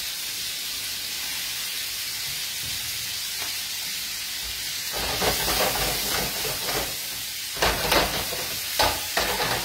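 Prawns and asparagus frying in oil in pans on a gas hob, a steady sizzle. About halfway through and again near the end it is joined by louder handling noise with a few sharp knocks.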